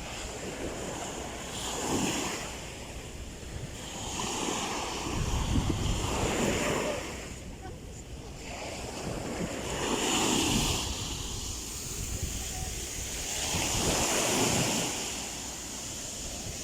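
Ocean waves breaking and washing in, swelling and ebbing about every four seconds, with wind rumbling on the microphone.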